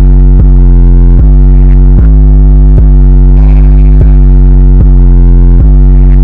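Very loud, distorted synthesizer music dominated by deep bass: a heavy bass line changes note on a steady beat, about once every 0.8 seconds.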